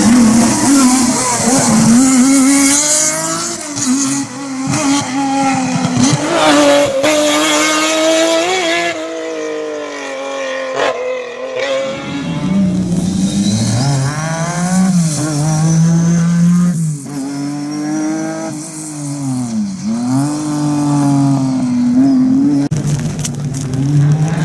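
Lancia Stratos rally car's 2.4-litre Ferrari Dino V6 at full throttle, its pitch climbing through each gear and dropping on lifts and shifts, over several short passes.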